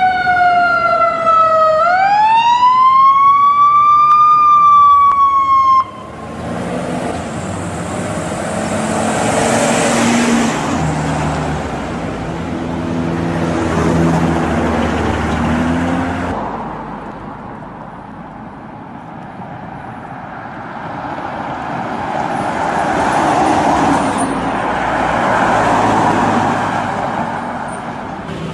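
Ambulance siren wailing: one pure tone glides down, sweeps back up, then slowly sinks, and cuts off abruptly about six seconds in. Road traffic noise follows, swelling and fading twice as vehicles pass, with a low hum in the first swell.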